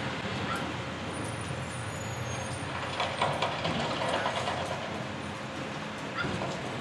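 Front-loader garbage truck's diesel engine running as it pulls up to a dumpster, with a cluster of sharp metal clanks and a hiss about three seconds in as it comes to a stop.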